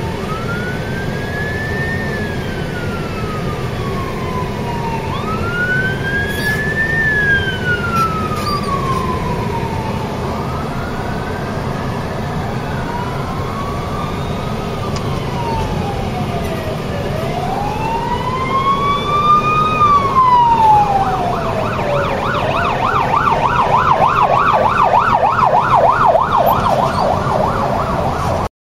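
Emergency vehicle sirens on a slow wail, each rising and falling over several seconds, with more than one sounding at once. Near the end one switches to a fast yelp warble, over a steady rumble of traffic.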